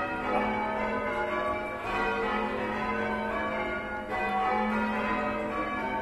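A ring of church tower bells being change rung by a band pulling the ropes, with a rapid, steady succession of overlapping bell strokes.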